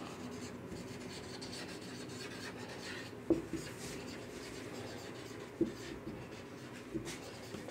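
Marker pen writing on a whiteboard: a soft, steady scraping of strokes, with three short taps.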